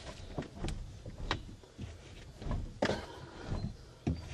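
Irregular clunks, clicks and creaks from a Nissan Sentra's steering wheel and column inside the cabin, as the locked wheel is worked free and turned by hand with the engine off.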